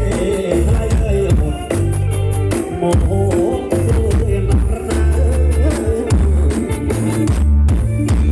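Music with a heavy bass line and a steady percussive beat, played loud over a large open-air cinema sound system during a sound test.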